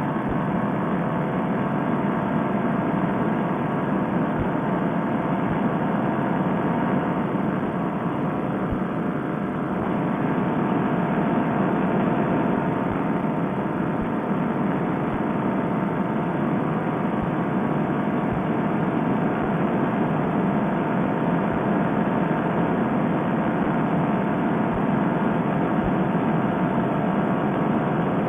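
Paramotor trike's two-stroke engine and propeller running steadily in flight, a constant drone mixed with wind rush. It gets slightly louder about ten seconds in.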